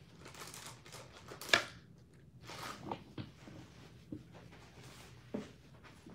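Faint off-camera handling noises from someone fetching card sleeves: light rustling and a few small clicks and knocks, with one sharper knock about a second and a half in.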